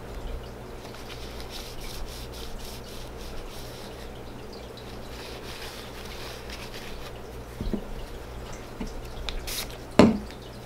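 Paper towel rubbing and crinkling as the spool and end cap of a spinning reel are wiped clean of grease, with a small knock and then a sharp knock near the end as a reel part is set down on the table.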